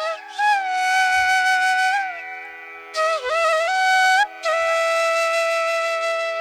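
Background music: a flute playing long held notes with slides between them over a steady drone, in an Indian classical style.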